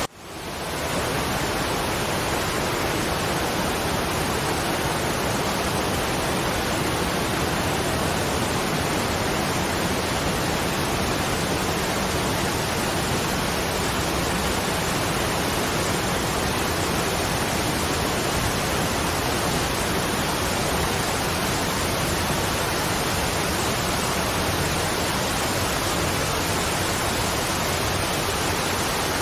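Waterfall: a steady, even rush of falling water that dips almost to silence at the very start and swells back within about a second.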